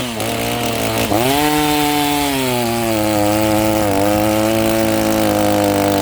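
Two-stroke Stihl MS 390 chainsaw, rebuilt with a Hipa kit, running at full throttle. Its pitch dips about a second in and climbs back, then holds high with slight sags as the chain cuts through wood.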